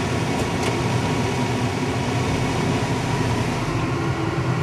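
Air-conditioning blower fan of a 1995 Lincoln Town Car running steadily on a high setting as a constant hiss, over the low steady hum of the idling V8, heard from inside the cabin.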